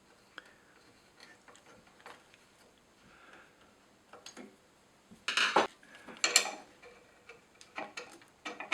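Small metal clicks and clinks of a hex wrench, mounting bolts and the telescope's drive assembly being handled and fitted, with two louder clinks about five and six seconds in and a few more clicks near the end.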